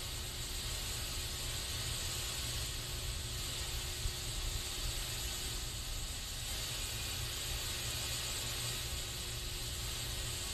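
Aerosol spray can hissing in one continuous, even stream, with a steady low rumble underneath.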